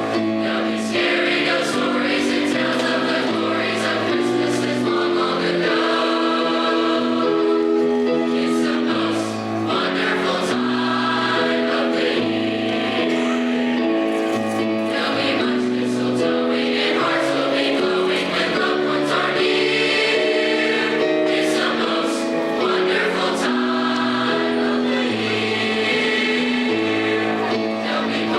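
High school choir singing in several parts, holding long chords that change together.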